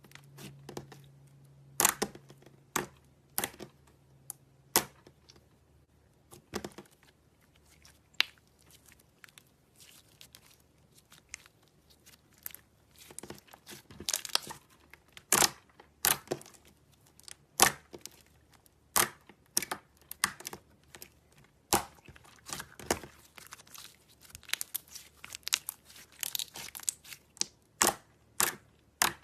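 Slime being pressed and worked by hand, giving irregular sharp pops and crackles, sparse at first and coming thicker and faster in the second half.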